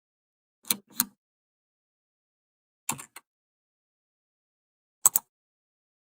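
Three button clicks about two seconds apart, each a quick double click, with dead silence between.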